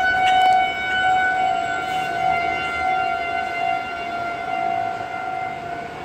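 Outdoor civil defense warning siren sounding a steady tone during a scheduled siren test, growing gradually fainter over the few seconds.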